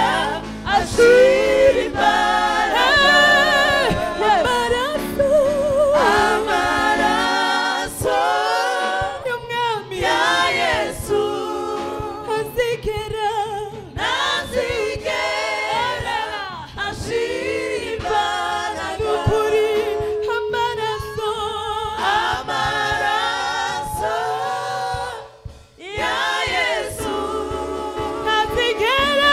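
Gospel worship song sung by a mixed group of female and male voices into microphones, the voices moving together in harmony. The singing briefly drops away about four seconds before the end.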